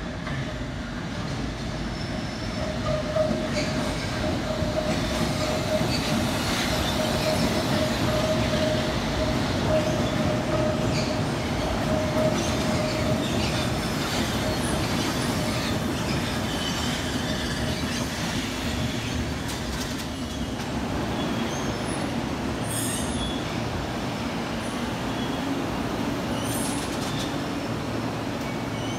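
London Underground S Stock train pulling slowly into the platform, rumbling over the rails, with a steady high squeal through the first half.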